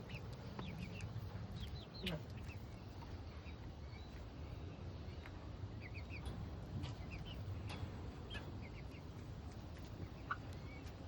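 Chickens making short, high chirping calls in scattered little clusters as they forage on bugs, over a low steady rumble.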